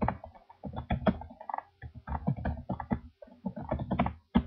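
Typing on a computer keyboard: irregular runs of quick key clicks with short pauses between words.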